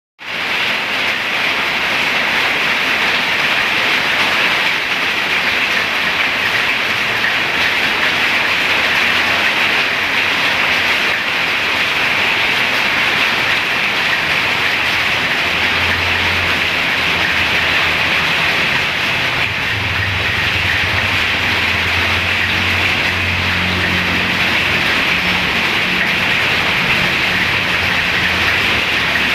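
Steady heavy rain, a loud even hiss. About halfway through, a low steady hum joins in underneath.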